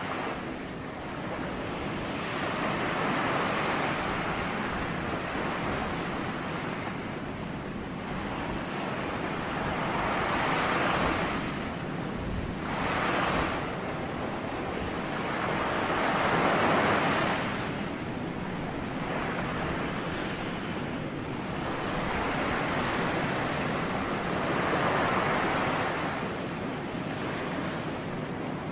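Ocean waves washing onto a shore: a continuous surf rush that swells and falls as each wave breaks, every few seconds.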